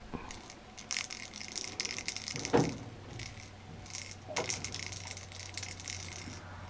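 Rustling and rattling of a ball-and-feather wand toy moved over a cloth backdrop as a kitten plays with it, in two spells of crackly rustle with small ticks. A sharper knock about two and a half seconds in is the loudest sound, with a second, smaller one a couple of seconds later.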